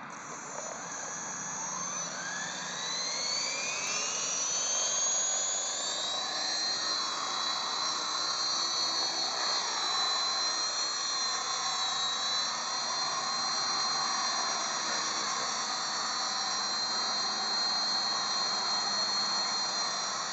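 Electric motor and rotor of a Spark 435M RC model helicopter spooling up for take-off: a high whine rising steeply in pitch over about the first six seconds. It then holds at a steady high whine, wavering slightly, while the helicopter flies.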